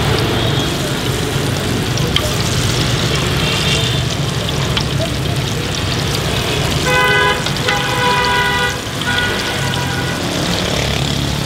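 Banana fritters sizzling as they deep-fry in a large pot of oil, over a steady background of street traffic. About seven seconds in, a vehicle horn honks several times over about three seconds.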